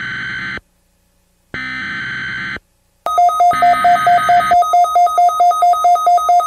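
Emergency Alert System data-header bursts: harsh buzzing digital tones about a second long, two of them with a pause between. About three seconds in, a loud pulsing two-tone alert signal starts, with a third data burst over its start.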